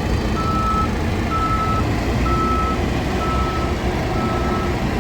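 Reversing alarm of a JCB 3DX backhoe loader beeping at one steady pitch, five half-second beeps about a second apart, over the machine's diesel engine running steadily underneath.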